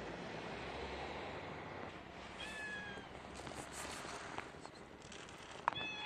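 Cat meowing twice, short high calls that fall slightly in pitch, about two and a half seconds in and again at the very end, with a sharp click just before the second call, over a steady background hiss.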